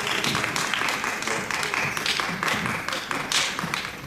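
Audience applauding, the clapping thinning out and getting quieter toward the end.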